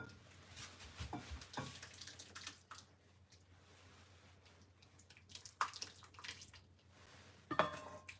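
Thick curry broth being poured and ladled from a hammered saucepan into bowls of udon, with soft splashing and dripping and a few light knocks of the wooden ladle against the pan and bowls.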